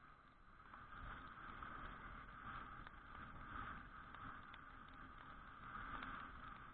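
Suzuki Address V125G scooter's steady riding noise on a wet road, picked up through an all-weather action camera's housing as a muffled hum that swells and eases a little, with a few faint ticks.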